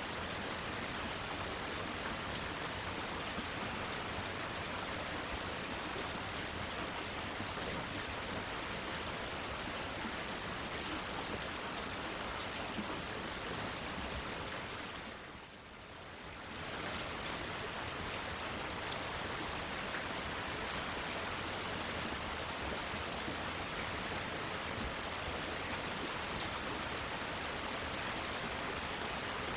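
Steady rain falling, an even hiss of drops, that dips briefly about halfway through and swells back.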